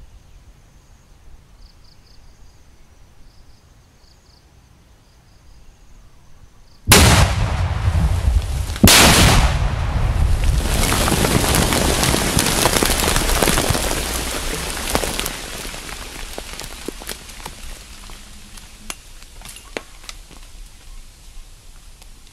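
Controlled detonation of landmines: two loud blasts about two seconds apart, followed by several seconds of dirt and debris falling back to the ground, fading away with a few last sharp hits. Insects trill faintly before the blast.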